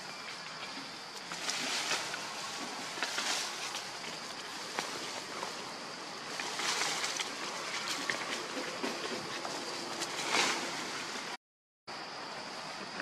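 Forest ambience: a steady high insect drone, with repeated brief swishes of leaves and branches rustling as macaques move in the foliage. The sound drops out completely for about half a second near the end.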